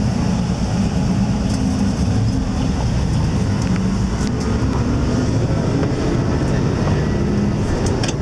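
Steady low rumble of a vehicle's engine and road noise, heard from aboard the moving vehicle in city traffic.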